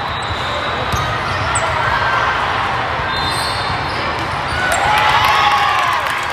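Volleyball being played on an indoor sport court in a large, echoing hall: scattered ball hits and sneaker squeaks over a steady din of crowd chatter. A louder cluster of squeaks and calls comes about five seconds in, as players go up at the net.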